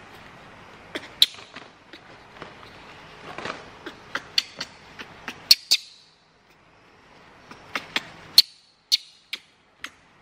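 Crinkling and sharp, irregular clicks from a disposable diaper being handled, fitted and fastened on a baby monkey, with a brief lull just past the middle.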